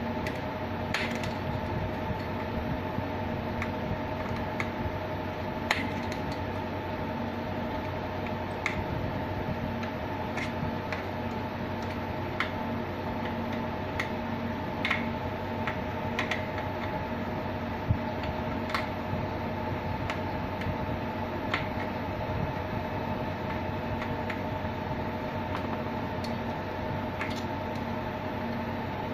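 Steady hum of cooling fans with several fixed tones, with scattered light clicks and taps of small parts being handled, about one every second or two.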